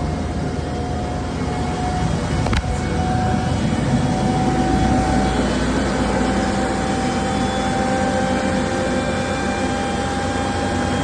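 Unimac 105-lb commercial washer running, its belt-driven drum and motor giving a steady hum with a whine that rises slowly in pitch as it gathers speed, and one sharp click about two and a half seconds in. It runs smoothly now that the drive belt sits centred on the pulley after the bushing was moved.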